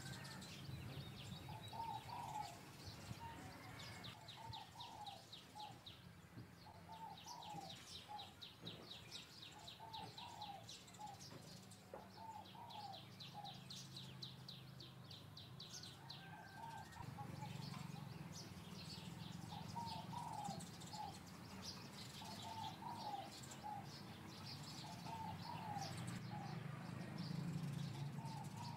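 Birds calling: short cooing phrases repeated every second or two, with bouts of fast, high chirping, over a low steady hum.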